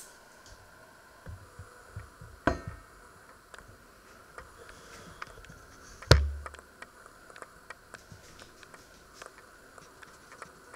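Handling noise from a handheld camera being moved over a kitchen counter: a few soft knocks and faint ticks, then one sharp knock with a brief low rumble about six seconds in.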